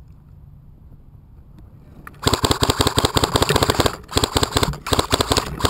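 Airsoft gun firing long full-auto bursts, a rapid string of sharp shots starting about two seconds in, with a brief break partway through.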